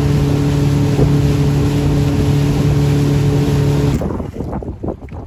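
A motorboat's engine runs at a steady pitch under way, with wind and water rushing past. About four seconds in it cuts off abruptly, leaving wind on the microphone and irregular water splashing against the boat.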